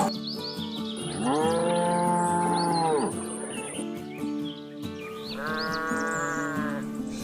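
A cow mooing twice, two long drawn-out calls that rise, hold and fall, the second one shorter, over background music with birds chirping.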